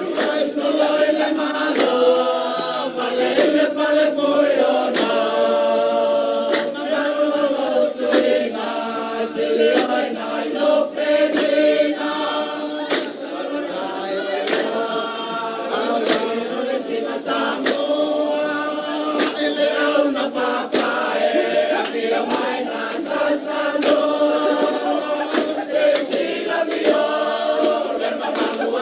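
A group of voices singing a Samoan song together in harmony, with sharp percussive strikes cutting in throughout.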